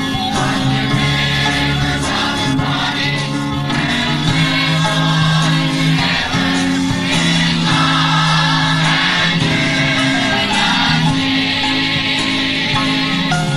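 A choir or congregation singing a gospel song together, with long held notes.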